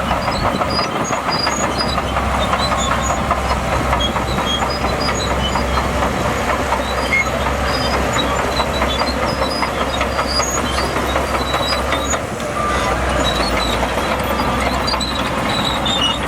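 Shantui DH17C2 crawler bulldozer working: the engine running steadily under a dense, continuous clatter of steel tracks, easing briefly about twelve seconds in.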